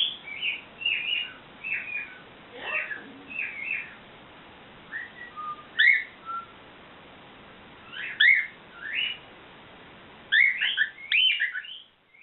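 Cockatiel calling: short whistled chirps in bursts separated by pauses, ending with a quick flurry of calls near the end.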